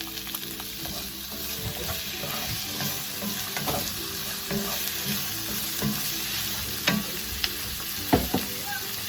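Onion, potato and carrot sizzling in a frying pan while being stirred, with a few sharp clicks of the utensil against the pan in the second half.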